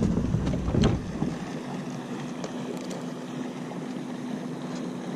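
Bow-mounted electric trolling motor running with a steady hum, and a low rumble underneath that drops away about one and a half seconds in.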